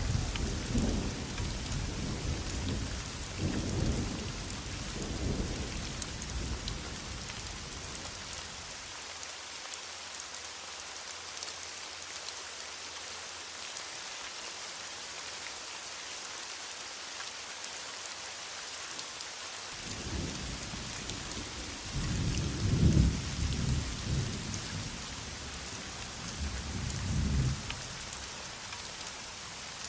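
Heavy rain falling as a steady hiss, with distant thunder rolling low during the first several seconds and again about two-thirds of the way through, dying away near the end.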